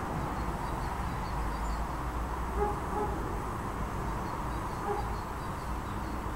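Steady outdoor background noise, mostly a low rumble, with faint high bird chirps in short runs.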